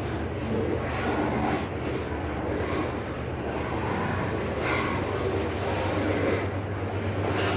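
Heavy iron ore freight train running past at restricted speed: a steady low diesel-electric locomotive engine hum under a rolling rumble of wheels on rail that swells and eases.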